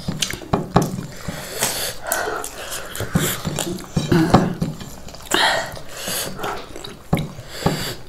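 Close-up eating sounds at a table: chewing, lip-smacking and slurping, with small clicks of a spoon and fingers on plates.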